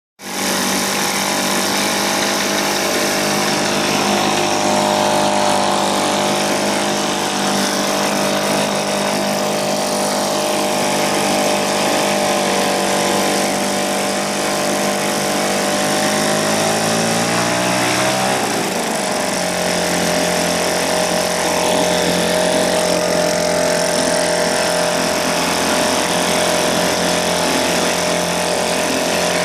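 1980 Johnson 2 hp two-stroke outboard motor running steadily after a full rebuild. Its speed rises a little about sixteen to eighteen seconds in, dips briefly, then settles at a steady pitch again.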